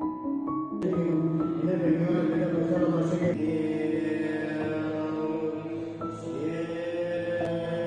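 Chanted Buddhist mantra with music: voices holding long, steady notes over a sustained backing. It starts suddenly about a second in, after a few rising piano-like notes.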